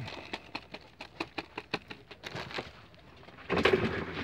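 Fishing tackle being handled aboard a small wooden boat: a run of irregular light clicks and taps, then a louder rustling scuff about three and a half seconds in.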